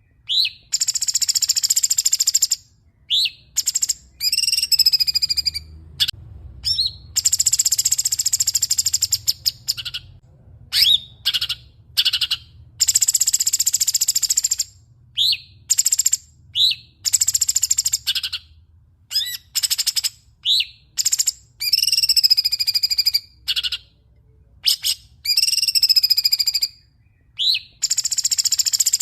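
A songbird singing loud, repeated phrases of sharp high chirps and falling whistled notes, with short pauses between phrases.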